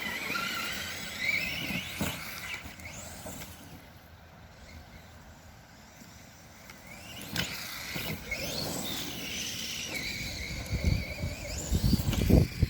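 Redcat Shredder RC truck's motor and drivetrain whining, the pitch rising and falling with the throttle, fading for a few seconds in the middle, with low thumps from the truck near the end.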